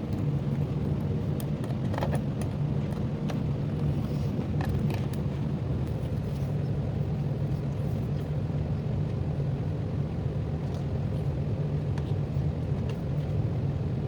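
A steady low hum, with a few light clicks about two seconds in and again around four to five seconds.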